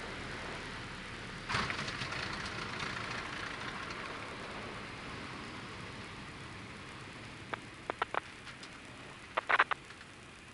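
Cockpit noise of a light aircraft on its landing roll: the engine at idle and the rush of air and wheels make a steady hiss that slowly fades as the aircraft slows. There is a sudden jolt about a second and a half in, then a few sharp knocks near the end, with a quick rattle of them just before it ends.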